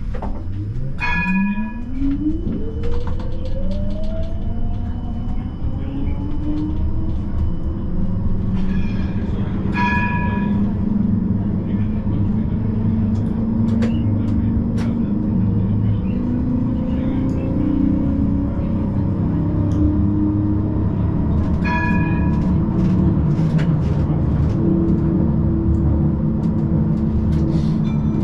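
Siemens Combino tram pulling away: its electric traction drive whines, rising steadily in pitch over the first several seconds as it picks up speed, over the steady rumble of wheels on the rails. The tram's bell rings briefly three times, about a second in, around ten seconds in and near twenty-two seconds.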